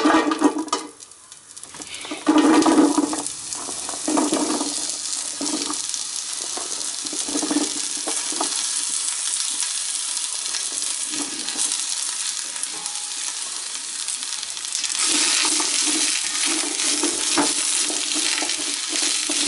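Chopped onion, zucchini and bell peppers tipped in batches from a wooden cutting board into a pot of hot olive oil, sizzling as they land. Near the end the vegetables are stirred with a spatula: the sizzle grows louder, with even stirring strokes about twice a second.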